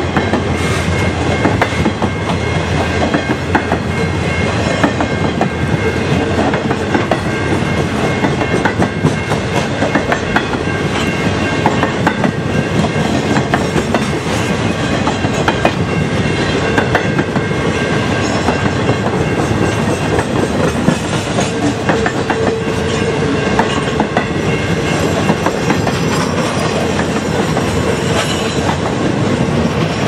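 Freight train of continuous welded rail cars rolling past, its wheels clattering and clicking steadily over the track.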